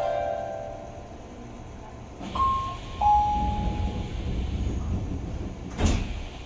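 Inside a subway train car: a low rumble, then a falling two-note chime a little over two seconds in, and a single sharp knock near the end.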